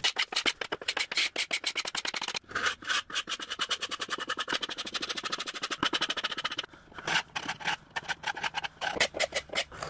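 Hand paint scraper dragged across a solid wood tabletop in quick, repeated strokes, several a second, stripping paint down to bare wood. The strokes pause briefly about two-thirds of the way through.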